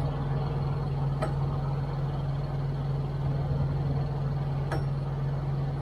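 Diesel engine idling steadily, with two brief sharp clicks, one about a second in and one near the end.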